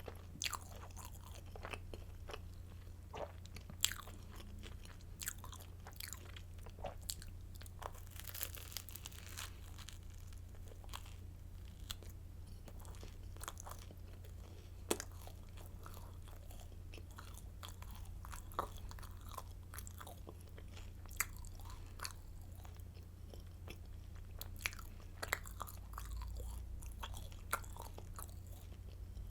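Close-up crunching and chewing of crisp garlic stick baguette: irregular sharp crackles of hard crust breaking between the teeth, over a steady low hum.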